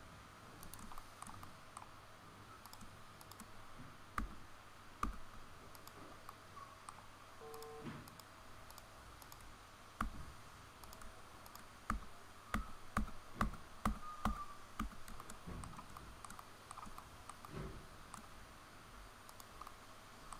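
Computer keyboard keys and mouse buttons clicking now and then, with a quick run of several clicks a little past halfway.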